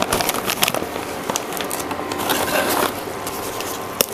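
Plastic bag crinkling and rustling as dried bay leaves are pulled out of it, over the irregular crackle of tomato masala cooking in the pan.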